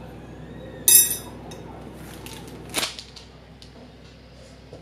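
Handling noise from a boxed brake rotor in plastic wrap: sharp crackles and clicks, the loudest about a second in and a smaller one near three seconds.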